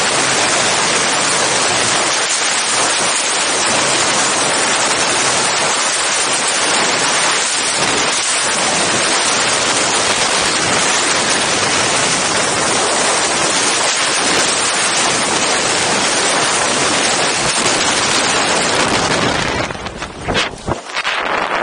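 Freefall wind rushing over the skydiver's Insta360 One X camera microphone: a loud, steady rush of noise. About twenty seconds in it drops off abruptly into uneven gusts, as the fall slows under the opening parachute.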